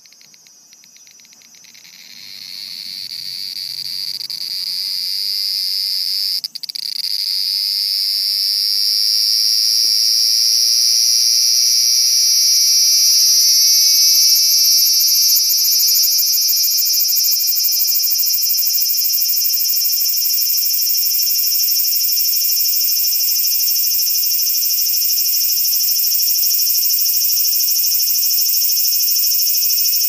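Cicada song: a high buzz that swells in from about two seconds in, rising slightly in pitch over the next dozen seconds, then holds as a steady, loud drone. It breaks off briefly once, about six seconds in.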